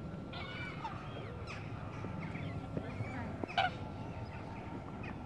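Geese honking: several short calls, the loudest about three and a half seconds in, over a low steady background rumble.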